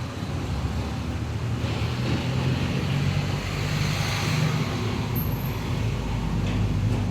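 Road traffic: a steady low engine hum, with a vehicle's noise swelling and fading as it passes by in the middle.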